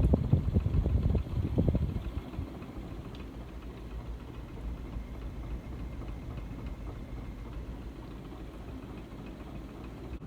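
1982 Moss Tropical Breeze Deluxe ceiling fan running on high speed: a steady low motor hum, with a louder, uneven low rumble for the first two seconds.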